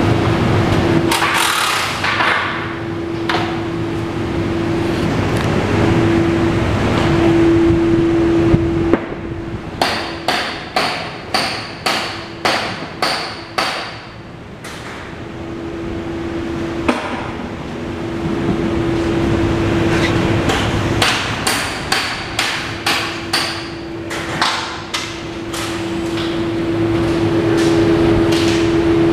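Hammer blows on metal in a workshop: two runs of sharp, ringing strikes, about two a second, each run lasting a few seconds. Under them runs a steady mechanical hum.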